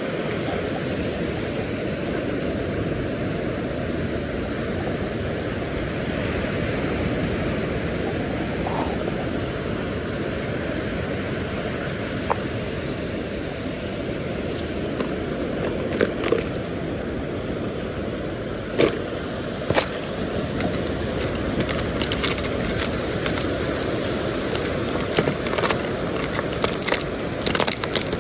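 Small metallic clicks and jingles of fishing tackle being handled while a spoon lure is rigged, scattered through the second half and growing more frequent near the end. Under them runs a steady low rushing of wind and surf.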